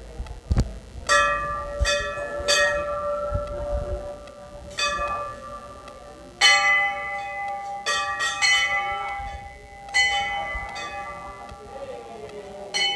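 Hindu temple bells, hanging brass bells struck by hand: about ten irregular clangs, each ringing on and overlapping the next, with a second, higher-pitched bell joining about six and a half seconds in. A single dull thump comes just before the first clang.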